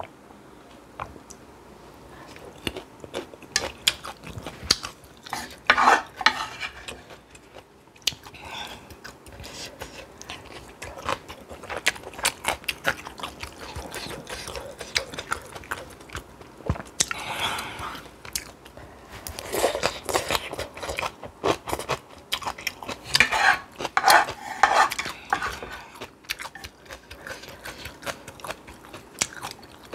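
Close-miked eating: cutlery clicking against dishes, with chewing and crunching of spicy noodles and kimchi that comes in louder spells every few seconds.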